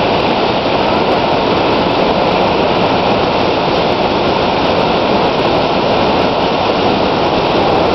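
Upper Burgess Falls plunging into the pool below: a steady, loud rush of falling water.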